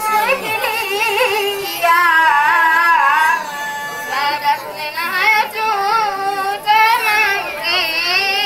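A girl's high voice singing a verse unaccompanied, in short phrases with a wavering, ornamented melody.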